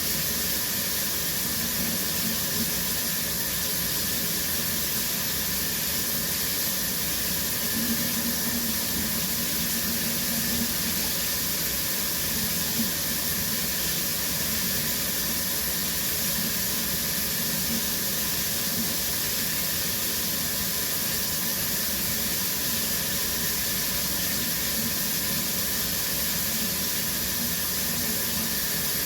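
Shower running steadily, water spray hissing down.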